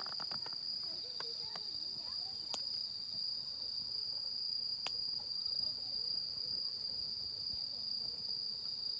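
A steady, high-pitched insect chorus trilling without a break, with a few sharp clicks in the first few seconds and one about five seconds in.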